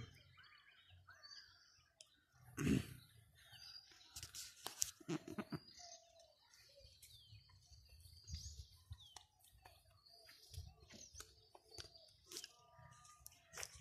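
Small birds chirping faintly here and there, with scattered soft thumps and rustles; the loudest is a thump about three seconds in.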